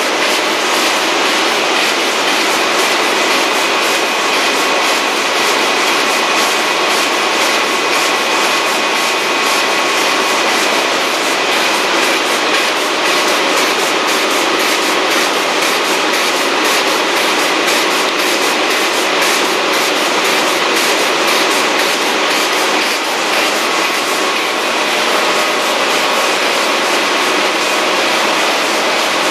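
Heidelberg Speedmaster 102 sheetfed offset printing press running: a loud, steady mechanical clatter with fast, even clicking and faint steady tones through it.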